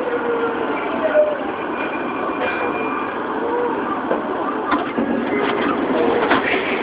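Tokyu 9000-series train braking to a stop, heard from inside the car: the Hitachi GTO-thyristor VVVF inverter's whine falls in pitch and dies away as the train halts. A few sharp clicks and knocks follow about five seconds in.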